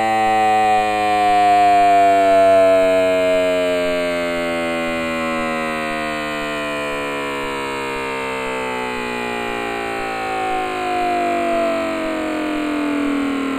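Simulated sound of a hypothetical Detroit Diesel two-stroke 60° V14 with an odd firing order, its revs falling steadily so that its buzzing note sinks in pitch throughout.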